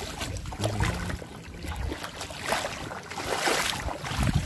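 Shallow seawater sloshing and splashing around a wader's legs and hands, in irregular bursts, with wind buffeting the microphone.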